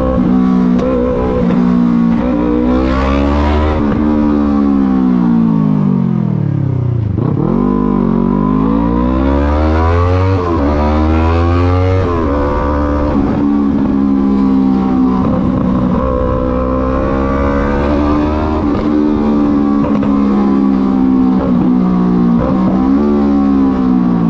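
Yamaha MT-03 motorcycle engine running under way, its revs rising and falling with throttle and gear changes. About seven seconds in the revs drop right down and then climb again, and they fall away once more near the end.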